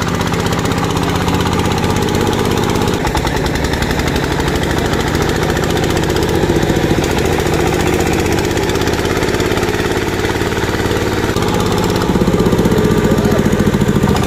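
Single-cylinder diesel engine of a two-wheel 'công nông' tractor chugging steadily while pulling a trailer loaded with logs. It gets a little louder about twelve seconds in.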